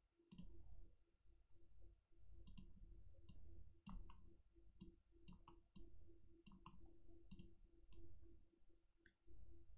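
Faint computer mouse clicks, a dozen or so at irregular intervals, over a low background hum.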